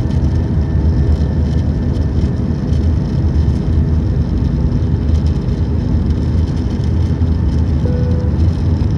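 Airbus A319 jet engines and airflow heard as a steady, loud drone inside the airliner's cabin in flight, heaviest in the low rumble, with a faint short tone about eight seconds in.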